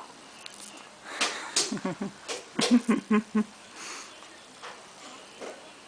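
A quick run of sneezes, about eight short sharp bursts within two seconds, the later ones with a brief vocal sound.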